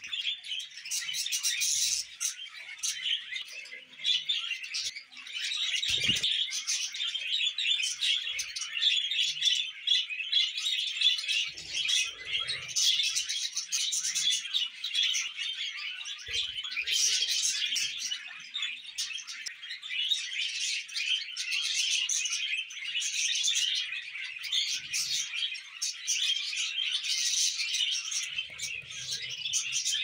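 Budgerigars chattering and warbling without a break, a dense run of fast chirps and twitters, with a soft knock about six seconds in.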